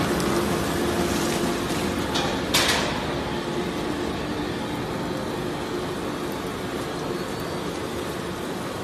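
Industrial waste grinder and its belt conveyor running steadily with a low hum, shredded cardboard and plastic pouring off the belt. There is one short, sharp burst of noise about two and a half seconds in.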